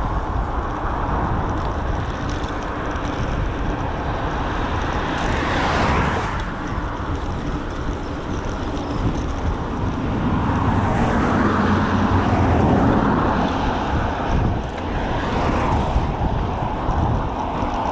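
Road traffic passing: vehicles swell and fade, one about six seconds in and a longer, louder stretch around eleven to thirteen seconds, over a steady low rumble.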